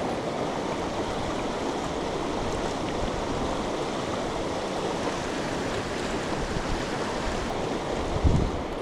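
Mountain stream water rushing steadily, with a brief low thump near the end.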